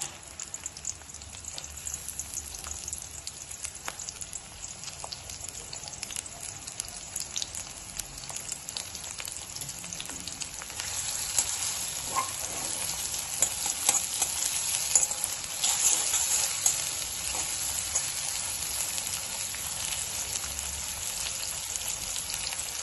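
Sliced onion sizzling as it fries in hot oil in a pan, with the scrape of a spoon stirring it. The crackling grows louder about halfway through.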